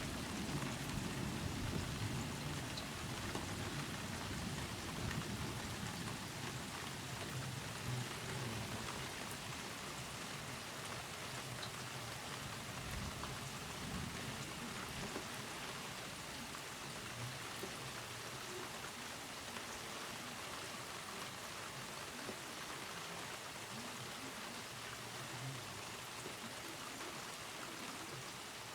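Steady rain falling, an even hiss throughout. A low thunder rumble dies away over the first few seconds.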